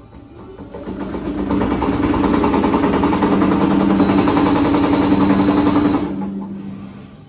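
Baileigh PH-28HD power hammer running, its dies striking a sheet-metal panel in a rapid continuous hammering while large beads are shaped into it. The hammering speeds up over about the first second or two, holds steady, then winds down near the end.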